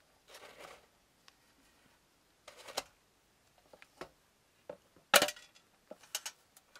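Antique brass hand warmer being handled with gloved hands: a soft brushing rustle, then a series of light metallic knocks and clicks as the brass box is turned over and set against the wooden table. The loudest knock comes a little over five seconds in, followed by a few quick clicks.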